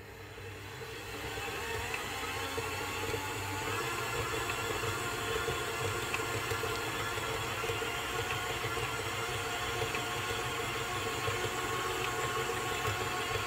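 Electric stand mixer kneading stiff bread dough: the motor whir rises in pitch and level over the first few seconds as it is turned up from low to high speed, then runs steadily at high speed.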